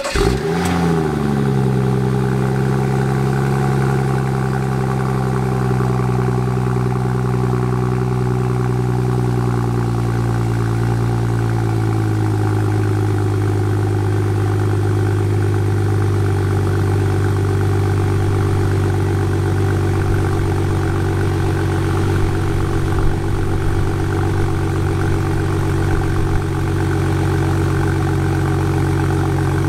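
BMW M235i's 3.0-litre turbocharged straight-six, on its stock exhaust, on a cold start: it catches with a brief flare of revs right at the start, then settles into a steady fast idle that eases slightly lower in pitch around ten seconds in.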